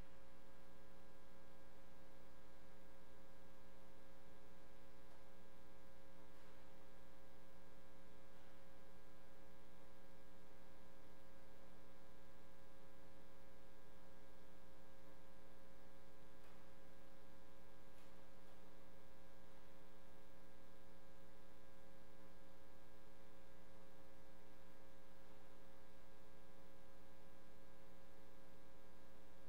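Steady electrical mains hum in the sound system, a buzz of several constant tones over faint hiss, with a few faint clicks.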